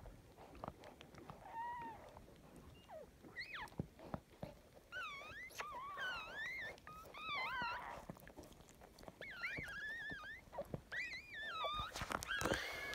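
Newborn puppies squealing: a series of high, wavering squeaks that rise and fall in pitch, coming more often from about three seconds in, with a few light knocks near the end.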